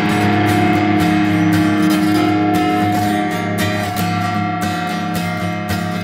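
Rock band recording with guitars strumming and ringing out sustained chords, getting slowly quieter over the few seconds.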